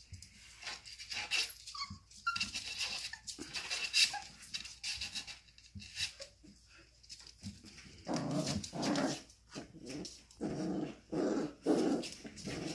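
Australian Shepherd puppies at play: scattered light clicks and scuffles, then from about eight seconds in a run of short, rough play growls as the dogs wrestle.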